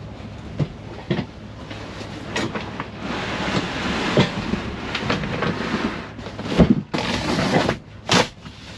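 Things being shifted and handled by hand: irregular knocks and clunks with scraping and rustling in between, the clunk about two-thirds through the loudest.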